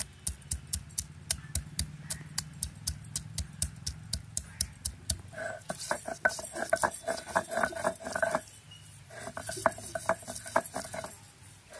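Ginger being crushed on a shil-nora grinding stone: the stone roller knocks down on the pieces about four times a second. About five seconds in it changes to stone scraping on stone as the roller is rubbed back and forth to grind a paste, with a brief pause near nine seconds.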